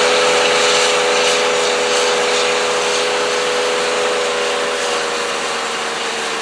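John Deere combine running steadily while harvesting soybeans: a constant machine hum and rush with a steady whine, slowly fading.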